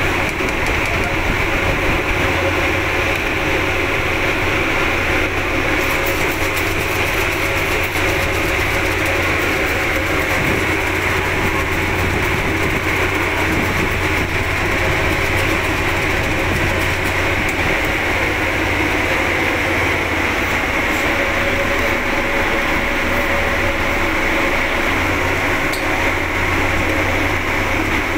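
Steady mechanical drone of a ferry's engine, an even low hum under a broad hiss that holds at one level throughout.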